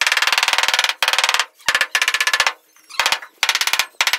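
A long wooden pole knocking rapidly against a granite floor slab as the slab is tamped down into its bed. It comes as short bursts of very fast rattling knocks with brief pauses between them.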